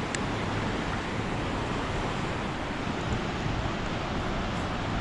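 Rain-swollen creek rushing with runoff off the mountain: a steady, even rush of water.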